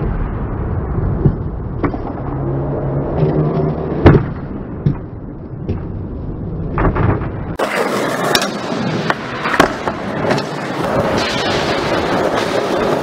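Skateboard wheels rolling over ramps and floor, with sharp clacks of the board and a loud crack of a landing about four seconds in. The rolling turns brighter and fuller about seven and a half seconds in.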